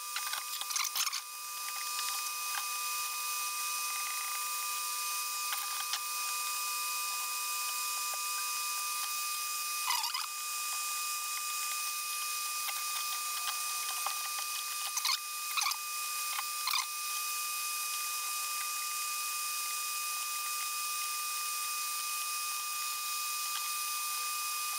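Steady whirring hiss of a running fan with a constant whine of a few steady tones. A few brief squeaks and clicks come from hand tools and wires being worked in an amplifier chassis, about a second in, at about ten seconds, and three more in quick succession around fifteen to seventeen seconds.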